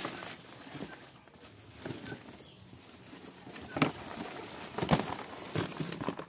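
Leafy Madre de Agua branches rustling as they are pushed into a wire rabbit cage, with a few sharp knocks against the cage, the loudest about four and five seconds in.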